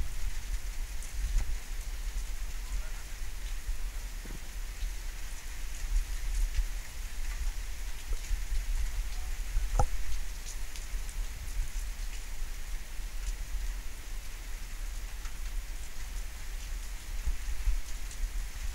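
Steady thunderstorm rain falling, with scattered sharp drop ticks (the clearest about halfway through) over a constant deep low rumble.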